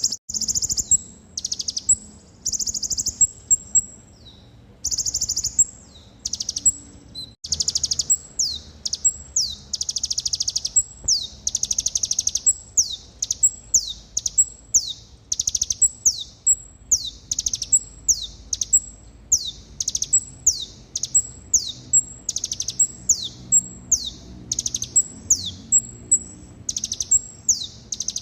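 Kolibri ninja sunbird song, high and thin: dense buzzy trills at first, then from about a third of the way in a fast, steady run of sharp falling chirps. It is the kind of song played as a lure to get other konin to sing.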